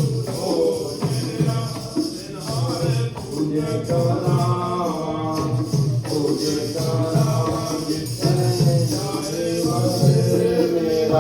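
Sikh kirtan: a devotional hymn sung with instrumental accompaniment and a steady percussive beat.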